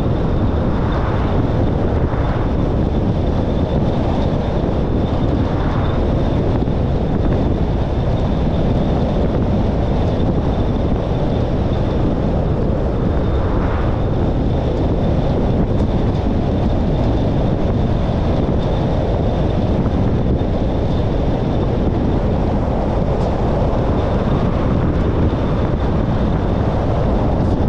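Steady road and wind noise from a car being driven, heaviest in the low end, with a faint high whine over it.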